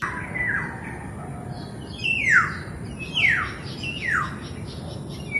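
Black-naped oriole giving a series of harsh calls that slide downward, about one a second. The loudest come from about two seconds in, over a steady background hiss.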